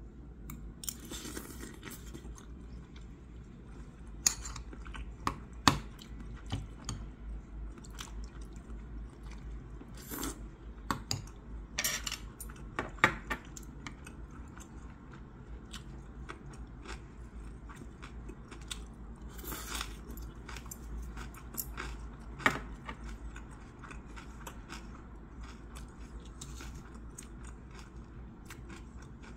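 Close-up eating sounds: chewing, with scattered sharp clicks of metal chopsticks and a spoon against bowls and plastic food containers.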